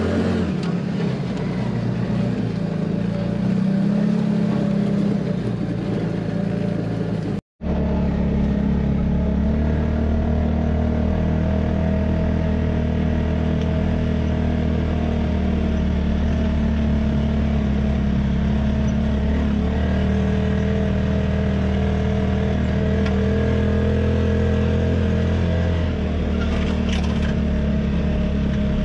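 Off-road 4x4's engine running steadily as it drives slowly over a dirt track, heard from inside the vehicle. The sound drops out for an instant about seven seconds in, and the engine note is slightly different after it.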